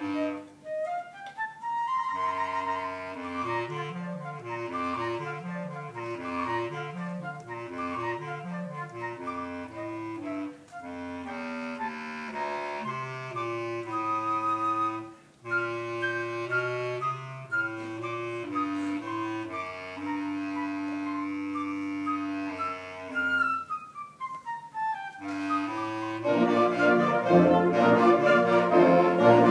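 Band music: high woodwinds play quick runs and sustained melody over a low bass line. About 26 seconds in, the full band with brass comes in much louder.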